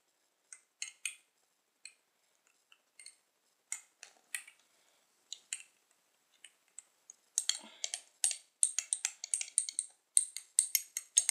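Metal teaspoon stirring thick cream in a small jar, clinking and scraping against the jar's sides. Scattered taps at first, then quick, continuous stirring from about seven seconds in.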